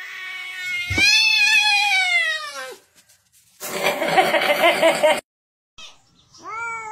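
Domestic cats yowling: about a second in, a loud drawn-out meow that falls steadily in pitch over about two seconds, then a harsher, noisier cry of about a second and a half that cuts off suddenly. Near the end another shorter yowl falls in pitch.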